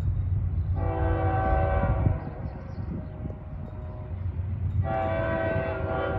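Distant air horn of the lead locomotive of an approaching CSX intermodal freight train: two chord blasts, one of about a second and a half, then a second starting about five seconds in. A steady low rumble runs underneath.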